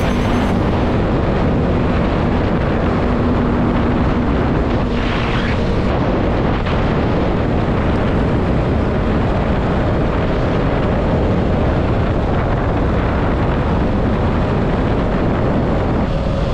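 KTM Duke 200's single-cylinder engine running at steady road speed under heavy wind rush on the camera microphone.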